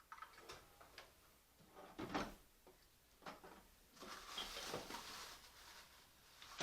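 Faint clicks and light knocks of small hand tools being picked up and set against the carburetor, the loudest about two seconds in, with a soft rustle of handling around four to five seconds in.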